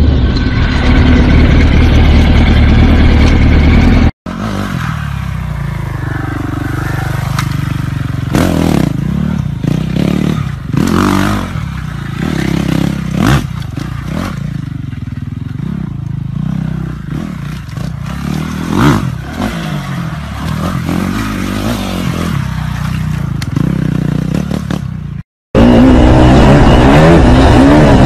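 Motorcycle engines in three short clips. First a sportbike engine running loud and close at speed. It cuts off after about four seconds. Then a dirt bike's engine, quieter and further off, rising and falling in pitch, with several sharp knocks and clatter. Near the end a dirt bike's engine is loud and close again.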